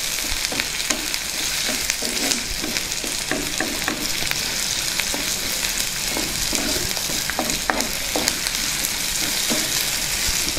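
Chopped onions, green chillies and curry leaves sizzling in hot oil in a clay pot, frying as a tempering. A wooden spatula scrapes and knocks against the pot over and over as they are stirred.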